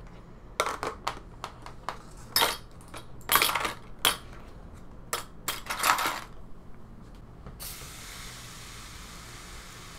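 Small brass-plated metal handles, hinges and rosettes clinking as they are set down one by one into a plastic tub, a handful of separate clinks and short clatters. About seven and a half seconds in, a steady hiss of aerosol oven cleaner being sprayed over them begins.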